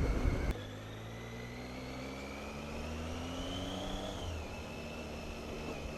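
Triumph Tiger motorcycle engine heard through a helmet-mounted microphone, revs rising steadily as the bike accelerates, then dropping about four seconds in, as at a gear change or easing off, and running steadily after.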